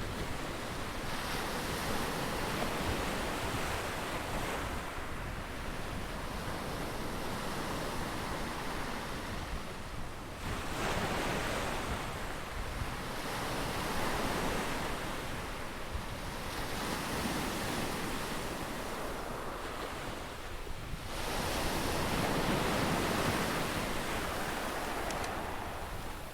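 Ocean surf: waves breaking and washing in one after another, each rushing swell rising and fading over a few seconds, the biggest near the end.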